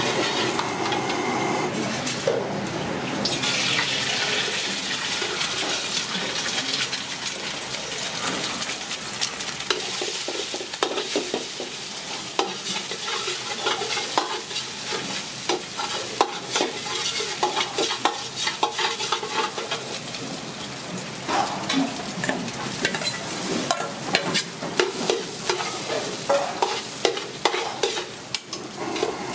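Eggs and then rice sizzling in oil in an aluminium wok over a gas burner, while a metal ladle scrapes and knocks against the wok as the food is stirred. The ladle strikes come thick and fast in the last third.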